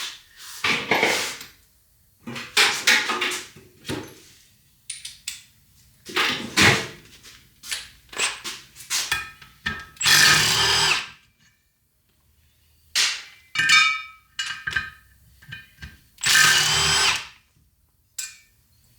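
Hand-held power tool with a 14 mm socket running in a string of short bursts, each about a second long, as it spins out the bolts holding the brake rotor to the front hub.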